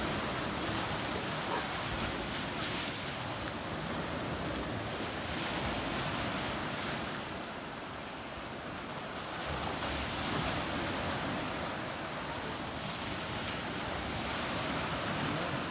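Black Sea waves washing in, a steady wash that ebbs slightly around the middle and swells again, with wind buffeting the microphone.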